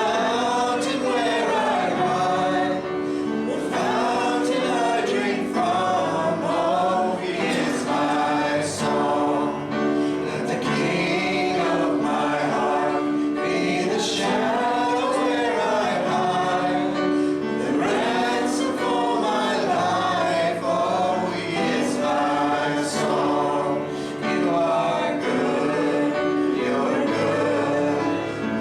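Several voices singing a worship song together over a held instrumental accompaniment.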